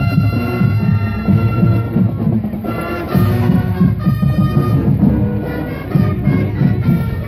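High school marching band playing as it marches: brass horns carrying the tune over a steady drum beat, with strong low notes underneath.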